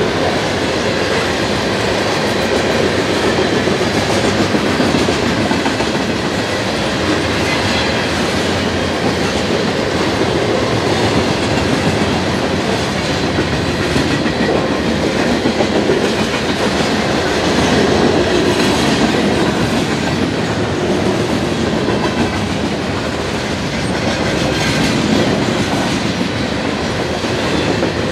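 Freight train cars, tank cars among them, rolling past at speed: a loud, steady rumble of steel wheels on rail with the clickety-clack of wheels over rail joints.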